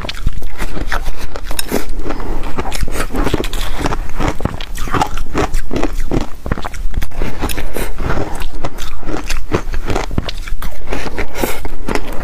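Biting and chewing of crunchy frozen ice coated in passion fruit pulp, close to the microphone: a dense, continuous run of sharp crackling crunches.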